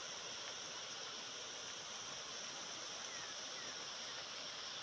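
Steady rushing of muddy floodwater flowing fast over open ground, an even hiss with a strong high edge to it.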